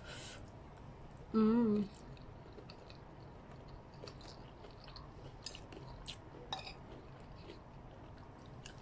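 Person eating stir-fried noodles: a short slurp as a forkful goes into the mouth, then a brief wavering hum about a second and a half in, followed by quiet chewing with small mouth clicks.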